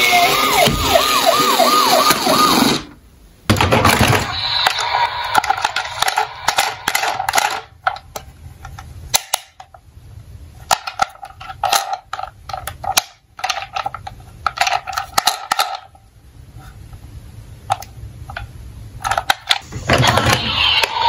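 A Tonka toy police car's electronic siren wailing in a fast repeating up-and-down pattern, cutting off after about three seconds. Then plastic toy cars clicking and clattering as they are picked through in a cardboard box.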